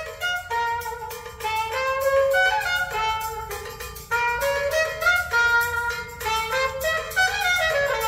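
Recorded music played back over hi-fi loudspeakers in a demo room: a melodic line of quick stepping notes, with no deep bass in this stretch.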